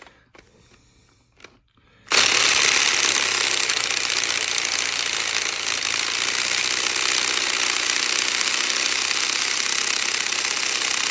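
Makita cordless drill running at high speed in reverse, a 29 mm bit chattering as it bores out a hole in metal. It starts abruptly about two seconds in and runs loud and steady.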